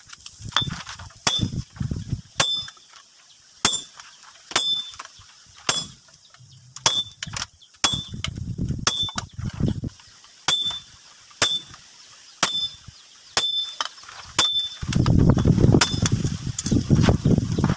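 Hammer blows on a hot-cut chisel driven through red-hot leaf-spring steel on an anvil: sharp metallic clinks with a short ring, about one a second. A low rumbling noise comes and goes between the strikes and is loudest near the end.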